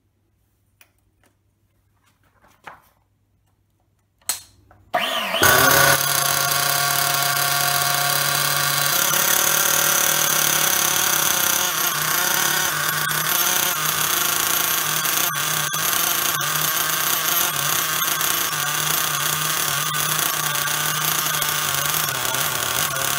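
Hyper 21 three-port nitro glow engine in a Hobao Hyper 7 TQ RC car, freshly re-pinched with a replacement head shim, on a test start: after a few faint clicks it catches about five seconds in and runs loud and steady.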